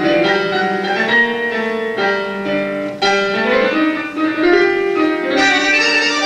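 Tango music played by a tango orchestra, with the piano to the fore and sharply accented chords.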